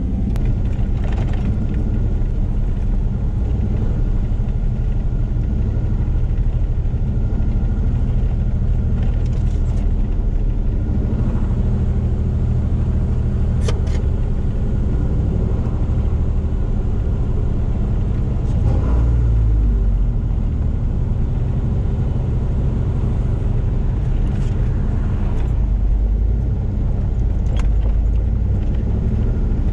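A truck driving, its engine and road noise making a steady low rumble, with a few brief knocks and rattles.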